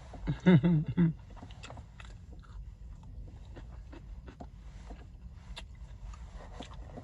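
A person chewing food close to the microphone: soft, irregular mouth clicks and smacks, after a brief voiced sound near the start, all over a low steady rumble.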